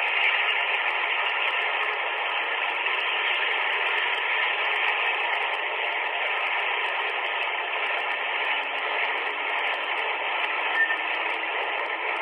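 A locomotive-hauled sleeper train passing close by: a steady rushing noise without distinct wheel clicks, thin and tinny as recorded by an old flip phone's microphone.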